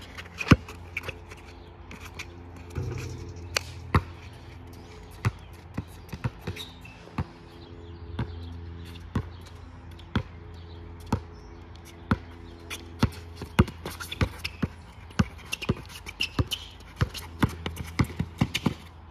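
Basketball bouncing on a hard court: sharp bounces about once a second, coming faster near the end. A steady low hum runs underneath.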